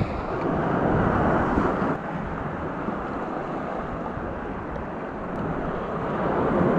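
Sea surf washing over and running off rocky shoreline in a steady rush, with wind buffeting the microphone.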